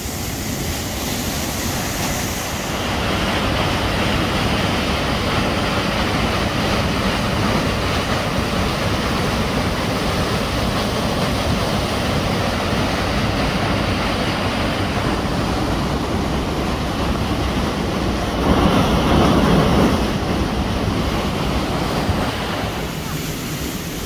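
Waterfall plunging into a rocky pool: a steady, loud rush of falling water that gets louder a couple of seconds in, swells briefly about three-quarters through, and eases a little near the end.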